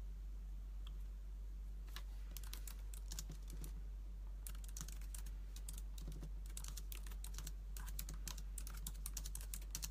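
Typing on a laptop keyboard: quick runs of key clicks starting about two seconds in, with a short pause before the middle, over a steady low hum.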